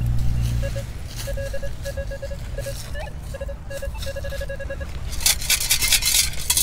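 Minelab Manticore metal detector sounding a target: short beeps on one mid pitch, repeated several times a second as the coil passes over a buried object. Near the end, sand is scraped up and shaken in a metal sand scoop, with gritty rattling.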